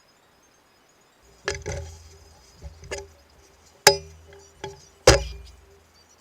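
Metal parts of a pillar drill head clinking and knocking as they are handled and struck during disassembly, about six sharp knocks with the two loudest near the four- and five-second marks.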